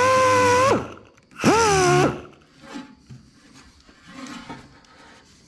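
High-speed grinder whining as it grinds a rough factory weld blob off sheet-metal panel corner, winding down and stopping under a second in, then a second short burst that spins up and winds down again.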